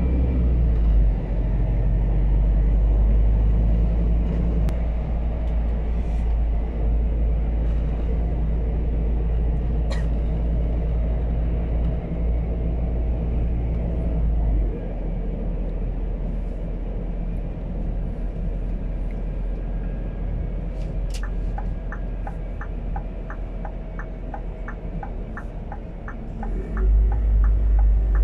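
Inside the cab of a Scania P280 truck with a biogas engine, under way: the engine and road noise make a steady low rumble that drops about halfway through and swells again just before the end. Over the last seven seconds or so the turn-signal indicator ticks about twice a second.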